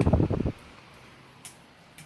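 Lasko table fan running on high while oscillating: a faint, steady whir with a low hum and a couple of small clicks, the first about one and a half seconds in.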